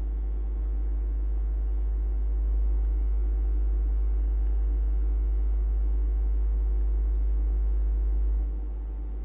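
Steady low hum with faint steady tones above it, no speech; it drops in level about a second before the end.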